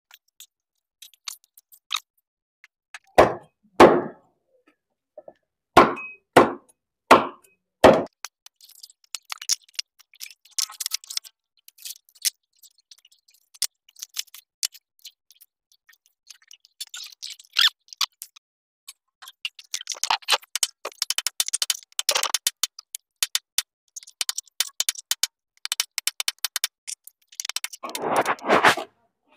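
Knife work on a raw chicken on a wooden cutting board: several sharp heavy chops, then a long run of quick clicks and scraping, and more heavy chops near the end.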